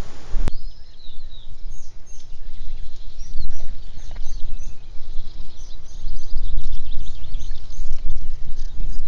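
Small birds chirping and singing, with many short, high calls repeated throughout, over a low, fluctuating rumble. About half a second in, a click marks a sudden change from an even hiss to this birdsong.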